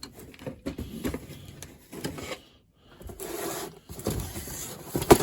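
Toy boxes and packaging being handled: irregular rustling, scraping and light knocks, with a denser rustle about three seconds in and a sharp knock near the end.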